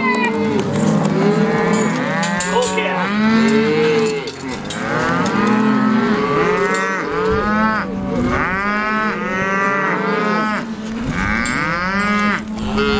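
Cattle bawling, many calls overlapping one another without pause.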